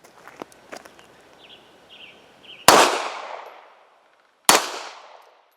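Two pistol shots from a Manurhin-made Walther PPK/S in .380, about two seconds apart, each echoing away over about a second.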